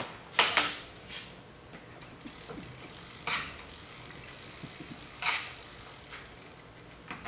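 Bicycle pedal being tightened onto the crank arm with a 15 mm pedal wrench: a few sharp metallic clicks of the wrench and pedal, a cluster about half a second in and single ones a couple of seconds apart later.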